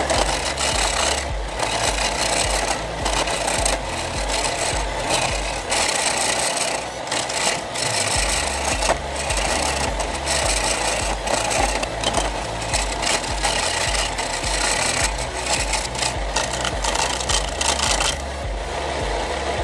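Turning chisel cutting a spinning wooden blank on a wood lathe: a rough rasping scrape that swells and fades as the tool is pressed in, over the lathe's low hum. The cutting stops near the end.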